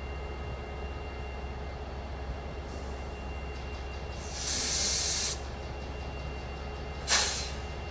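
Air hissing from a stopped CSX freight train's air brakes: a faint hiss about three seconds in, a loud hiss lasting about a second near the middle, and a short sharp burst near the end. A low steady drone of idling locomotives runs underneath.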